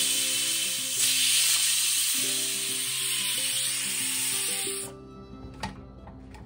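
Stovetop pressure cooker venting steam through its weight valve: a loud hiss that swells again about a second in and cuts off suddenly near the end, over background music.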